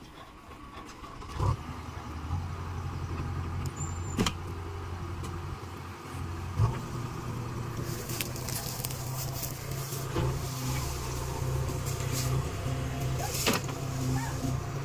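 JCB 3DX backhoe loader's diesel engine running, getting louder about a second and a half in and shifting pitch about halfway through as the backhoe arm works. A few short knocks and clanks sound over it.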